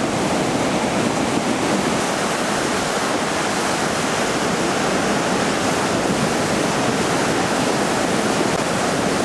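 The Río Saja in flood: fast, swollen floodwater rushing steadily.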